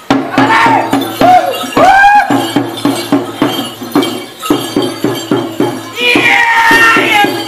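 Small hand drum for a Kabasaran war dance, beaten with a stick in a fast, even beat of about four strokes a second. Dancers' loud shouted calls ring out over it near the start and again a little over six seconds in.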